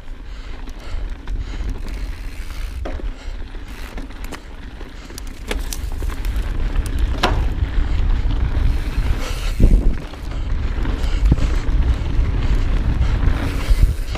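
Wind buffeting the ride camera's microphone over the tyres of an Evil Wreckoning 29er mountain bike rolling fast on a dirt trail, with scattered clicks and knocks from the bike over bumps. It grows louder from about six seconds in as the descent speeds up, and there is a hard thump near ten seconds.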